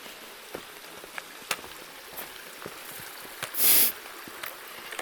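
Hiking footsteps on a rocky mountain trail, irregular crunching steps over a faint steady wash of running water. About three and a half seconds in comes one short, loud hissing scrape.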